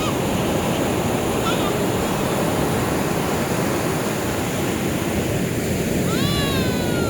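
Ocean surf washing onto a beach, a steady rush of waves, with a short high call near the end.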